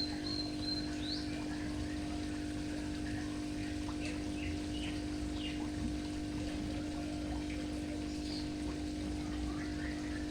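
Water trickling steadily over a constant low electric hum, with short high bird chirps now and then.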